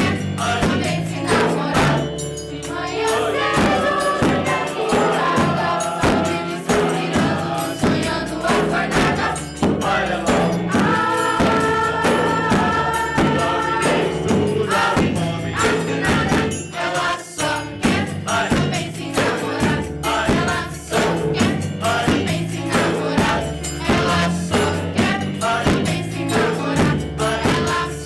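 A youth music ensemble performing a song: voices singing together over a steady rhythm of hand percussion with jingles. A few notes are held for a couple of seconds about halfway through.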